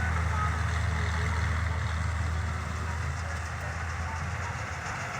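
Combine harvester's diesel engine running steadily with a low hum, easing off a little about halfway through.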